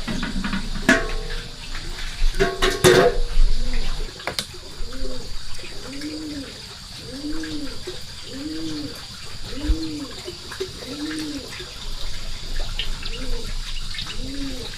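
A bird giving a long, even series of low cooing notes, each one rising and falling, starting about a third of the way in. It follows a few knocks and a brief louder noisy clatter near the start.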